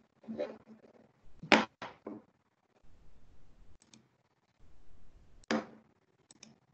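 A few sharp computer-mouse clicks, about four seconds in and twice near the end, with two louder short noises close to the microphone about a second and a half in and five and a half seconds in.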